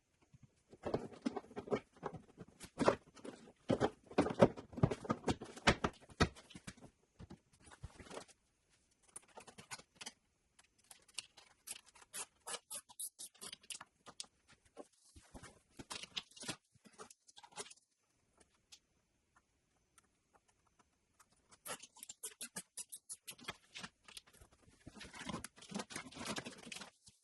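Rapid, irregular clicking and rustling of wires and small plastic parts being handled during wiring work. It comes in bursts, busiest early, sparse about two-thirds of the way through, and picks up again near the end.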